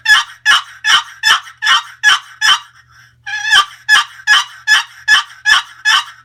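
Purple Heart over cherry wooden turkey box call, its lid stroked across the sound box to make yelps. There are two runs of evenly spaced yelps, about two and a half a second, with a short break between them.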